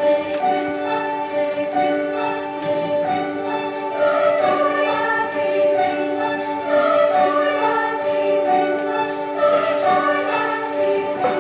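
A choir singing in parts, holding sustained chords that shift every second or so.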